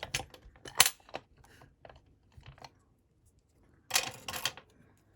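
Clicks and clatter of lock picks and a Medeco cam lock being handled in a vise, with a loud click about a second in and a short burst of scraping clatter about four seconds in.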